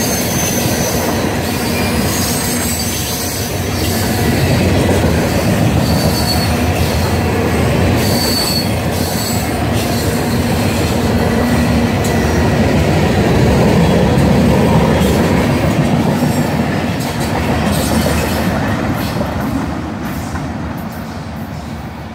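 Freight train of tank cars and covered hoppers rolling past, with a steady rumble of wheels on rail. Several brief high wheel squeals come in the first half. The sound fades as the last cars go by near the end.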